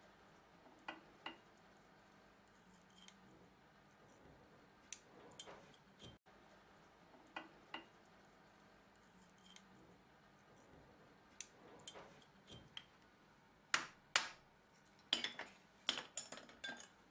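Faint, scattered metallic clicks and clinks as the oily internals of a Jaguar Mk1 worm-and-nut steering box are taken out by hand: the worm shaft and half nut knocking against the cast casing. The clinks come quicker and louder in the last few seconds.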